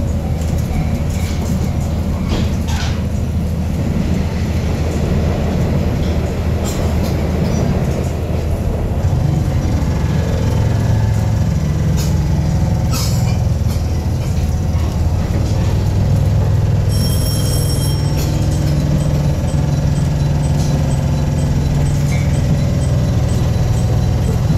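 Cabin sound of a KiHa 48 diesel railcar under way: the underfloor diesel engine drones steadily with the running noise of the car, and its note rises and grows louder about a third of the way in. Scattered clicks and knocks from the wheels and car body come through, and a brief high squeal sounds about two-thirds of the way through.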